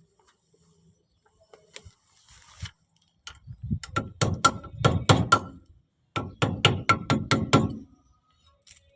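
Two runs of quick hammer blows on metal, about five a second, each with a short metallic ring, with a brief pause between the runs.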